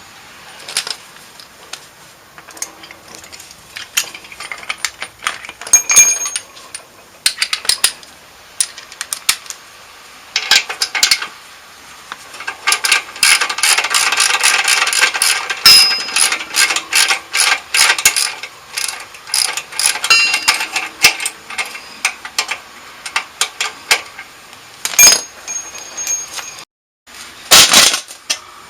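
A ratchet wrench clicking in quick runs while the bolts of a Harley-Davidson muffler stay are undone, with metal tools and parts clinking and knocking. The fastest, densest clicking comes in the middle, and a few sharp metallic knocks come near the end.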